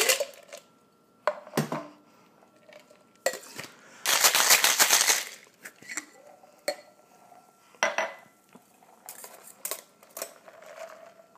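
Cocktail shaker being closed with a couple of knocks, then shaken hard for about two seconds with ice rattling inside. Scattered metal and glass clinks follow as it is handled.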